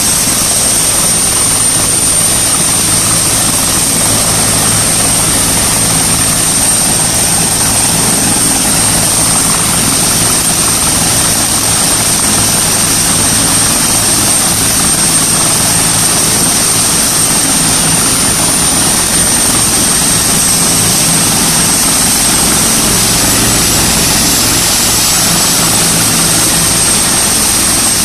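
Air-ambulance helicopter running on the ground with its main rotor turning, before lift-off. The turbine gives a steady high-pitched whine over continuous, even rotor and engine noise.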